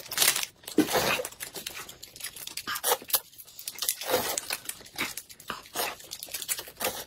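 Close-miked eating: noodles being slurped and chewed, mixed with the irregular crinkling and tearing of small plastic snack wrappers being ripped open.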